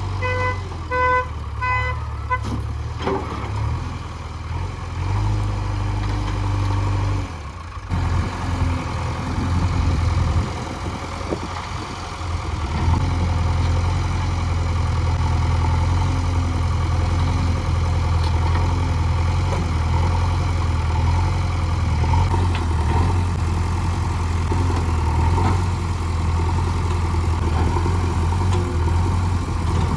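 Heavy diesel machinery engine running steadily. A quick series of short horn beeps, about two a second, sounds in the first two seconds.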